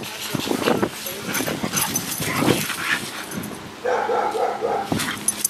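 Two dogs at play, making irregular rough play noises, then about four seconds in a quick run of four or five short barks lasting about a second.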